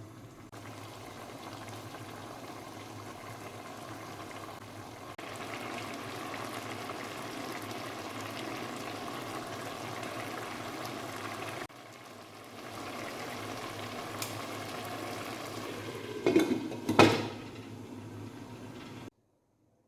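A pot of chicken pulao rice bubbling steadily in its water as it boils. Near the end there are two loud short knocks, such as a utensil or lid against the pot, and then the sound cuts off suddenly.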